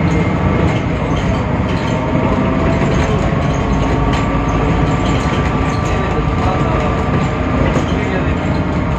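Temsa Avenue LF city bus running, heard on board: the steady noise of its DAF PR 228 diesel and ZF Ecolife automatic gearbox, with faint whines that drift in pitch and occasional rattles.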